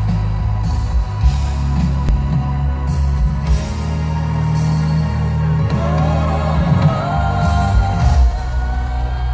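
A live pop band plays loudly through a big outdoor concert sound system, heard from within the crowd, with heavy bass. A singing voice comes in about six seconds in.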